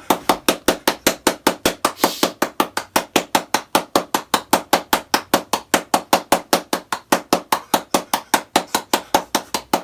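Rapid, evenly spaced knocks, about six a second, keeping a steady machine-like rhythm.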